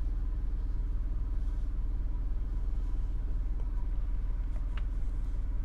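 Steady low hum of background room noise with faint light ticks about three and a half and five seconds in.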